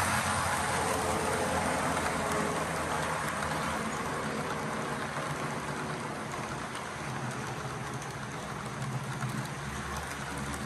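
Model train freight cars rolling past on the track: a steady rattling clatter of wheels on the rails over a low motor hum, easing slightly as the cars go by.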